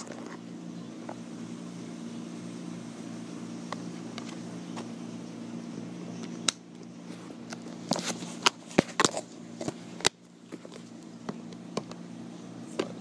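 Plastic feeder-insect cups being handled, giving sharp clicks and knocks several times in the second half, over a steady low hum.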